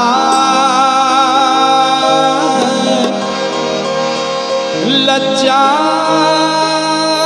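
Live Hindu devotional bhajan music: a harmonium and electronic keyboard hold a steady drone and a wavering melody, with a male voice singing.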